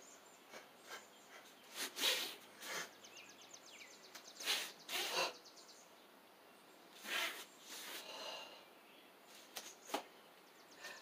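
Short sharp breaths and clothing swishes from a karate practitioner moving through a pinan kata, one short burst every second or two, with a faint high rapid trill behind them.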